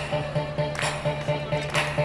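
Music with a steady beat: a pulsing bass line, a snare-like hit about once a second, and sustained higher notes.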